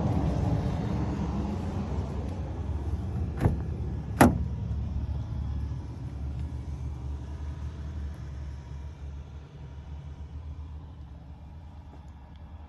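Pickup truck's driver door opening: two sharp clicks less than a second apart as the handle is pulled and the latch releases, the second louder. Under them runs a low steady rumble that slowly fades.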